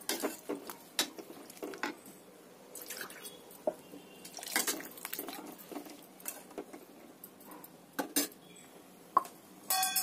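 Perforated steel ladle stirring watery vegetable sambar in a stainless steel kadai: irregular sloshing and scraping of metal on the pan, with a ringing metal clink near the end.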